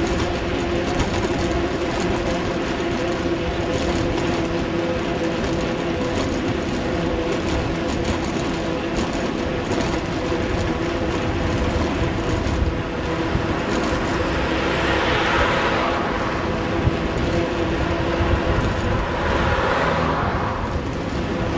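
Riding noise picked up by a camera mounted on a moving bicycle: steady road and wind rush with constant rattling clicks from the mount as it shakes over the tarmac. Two louder swells of rushing noise come about two-thirds through and near the end.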